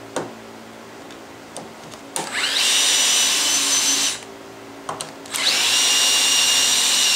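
Electric drill boring down into a wooden mallet head, drilling relief holes through the barrel to clear chips for the router bit. It runs twice: each time it spins up with a quickly rising whine and then runs steadily, the first for about two seconds, the second from about halfway through to the end. A few light clicks come first.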